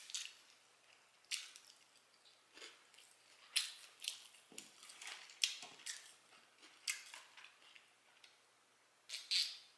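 Close-miked chewing with wet lip smacks, coming irregularly about every half second to a second, with a louder pair of smacks near the end.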